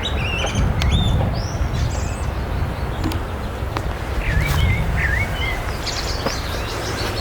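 Wild birds chirping: many short, quick notes that rise and fall, coming in small clusters, over a steady low rumble.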